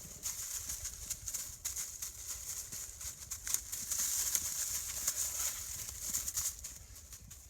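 Rustling and crackling of movement through forest leaf litter and undergrowth, made by a tracking dog and its handler, in irregular short crunches.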